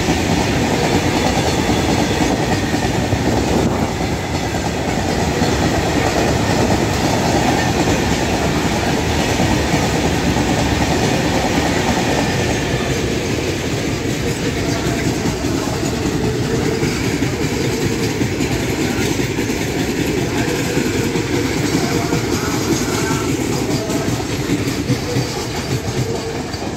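Freight train of open steel wagons rolling past close by: a steady loud rumble with the clatter of wheels over rail joints. About twelve seconds in, the sound turns duller as the higher part of the noise drops away, as the nearer of two passing trains clears and the one on the farther track carries on.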